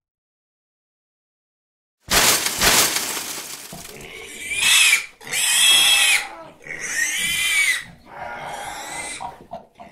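About two seconds of silence, then a loud burst of noise lasting about two seconds, followed by four pig squeals as a cartoon sound effect, each rising and then falling in pitch.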